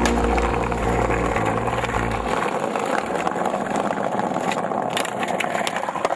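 Background music fades out about two seconds in. After that comes the rough rolling noise of skateboard wheels on asphalt, with scattered sharp clicks and clacks from the board.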